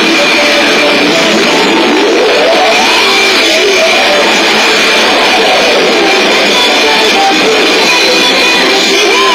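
Pachinko machine playing loud rock-style music with electric guitar, with sliding electronic sound effects rising and falling over it.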